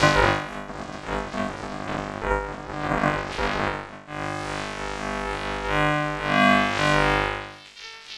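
Synthesizer keyboard music with sustained notes over a steady bass, dropping off sharply shortly before the end.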